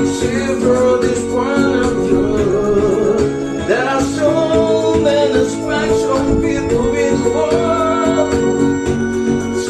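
A woman singing a song over a steady electronic keyboard or organ accompaniment.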